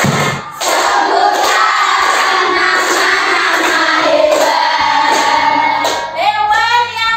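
A group of children singing a song together, clapping hands about twice a second to the beat.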